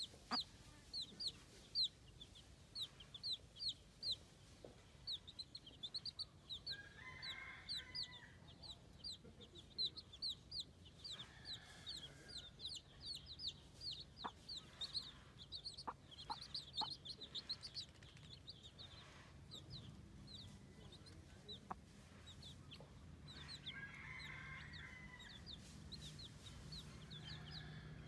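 Baby chicks peeping: a rapid stream of short, high, falling peeps, several a second, that thins out over the last third. A low steady hum comes in partway through.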